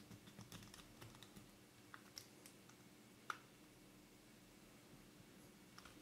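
Faint small clicks and ticks of a precision screwdriver working a screw into the metal bayonet mount of a Nikkor lens, with one sharper click about three seconds in; otherwise near silence.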